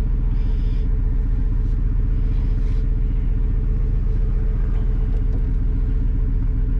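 Dodge Ram 1500 pickup's engine idling steadily, heard from inside the cab, with a freshly replaced alternator charging normally.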